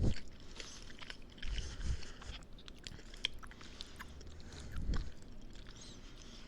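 Close-miked chewing of a burrito: wet, smacking mouth sounds with many small clicks, and soft low thumps about one and a half and five seconds in.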